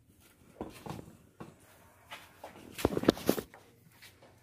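Silicone spatula stirring melting butter in a stainless steel pan, making light scrapes and knocks, with a short cluster of louder knocks about three seconds in.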